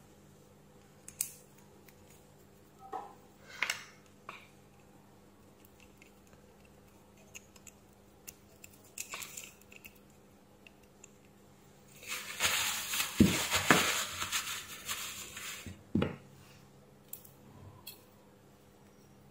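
Hand handling of cordless-drill gearbox parts: small metal gears and the plastic housing clicking and clinking now and then. About two-thirds through comes a louder few seconds of scraping and rustling, with a few sharp knocks, and a last knock just after it.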